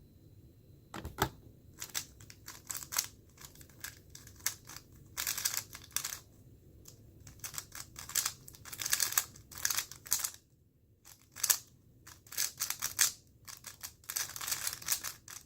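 Moyu Weilong GTS2M 3x3 speedcube being turned fast during a solve: bursts of rapid plastic clicking and clacking, broken by short pauses. A single sharp knock about a second in.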